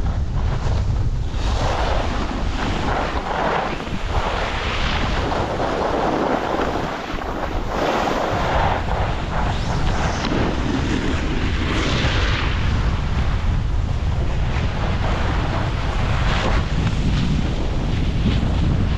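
Wind buffeting the camera microphone during a downhill run on snow, a steady low rumble. Over it, swells of scraping hiss every second or two as edges carve turns across packed snow.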